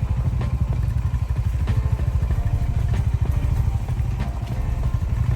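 Motorcycle engine running at low speed, a fast even pulsing throughout.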